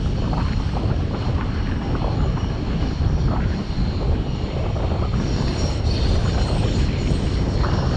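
Steady low rumble of wind buffeting a bicycle-mounted action camera's microphone while riding, over road-traffic noise from the cars alongside.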